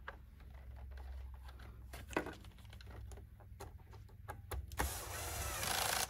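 Light clicks of a Roomba's plastic side brush and screw being handled, then, about five seconds in, a louder second-long stretch of scraping noise as a screwdriver drives the side-brush screw home.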